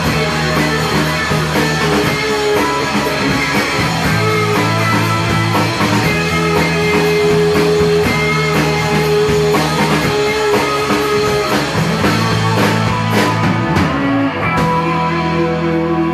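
Live rock band playing an instrumental passage with electric guitars holding chords, changing every second or two, with a downward slide about fourteen seconds in.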